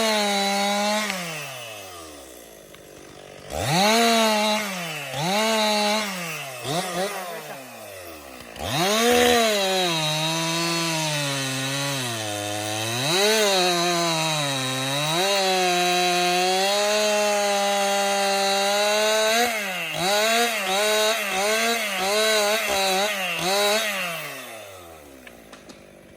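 Chainsaw engine revving in short bursts, then held at high revs through a long cut, its pitch sagging under load while the chain bites into wood. Near the end come several quick blips of the throttle, and then the engine drops back toward idle.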